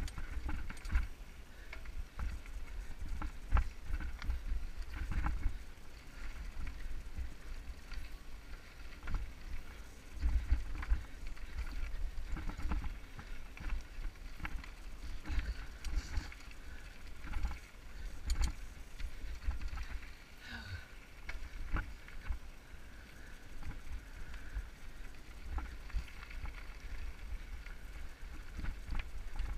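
Mountain bike rolling fast over a rocky dirt trail: wind rumbling on the helmet camera's microphone, with frequent rattles and knocks from the bike as it goes over stones.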